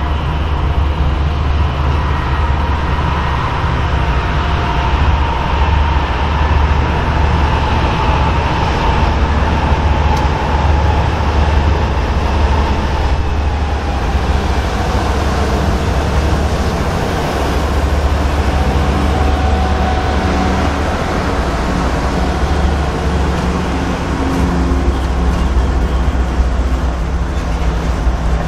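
Freight train passing close by: two BNSF diesel-electric locomotives rumble past with a steady whine that drops slightly in pitch as they go by. After about halfway, the rolling rumble of tank-car wheels on the rails takes over.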